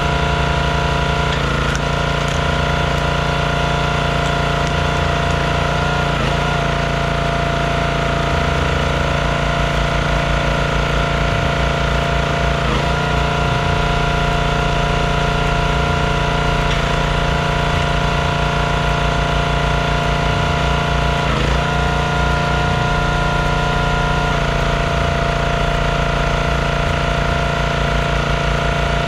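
Performance Built gas log splitter's small engine running steadily, its note dipping and shifting briefly about five times as the hydraulic pump takes load while logs are split.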